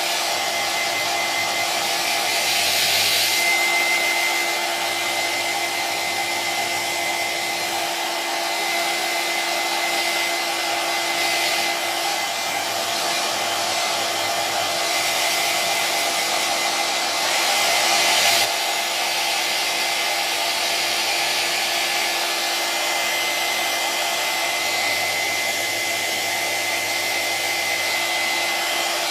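Electric hair dryer running steadily: rushing air with a steady motor whine. The air briefly gets louder and brighter about three seconds in and again around seventeen to eighteen seconds in.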